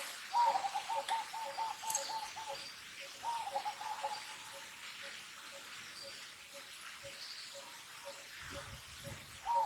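Birds calling: a rapid run of short notes, about five a second, comes in a bout at the start, a shorter one a few seconds in, and another near the end, over a steady, evenly repeated single note.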